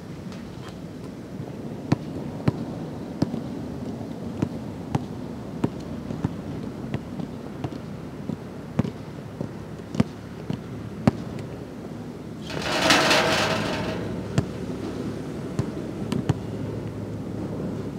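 A basketball bouncing on an outdoor court: sharp knocks at irregular intervals, roughly one or two a second. About twelve and a half seconds in, a louder rattling noise lasts about a second and a half.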